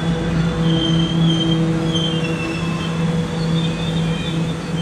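Rocky Mountaineer bilevel dome passenger coaches rolling past, with a steady low hum and short high-pitched wheel squeals that come and go.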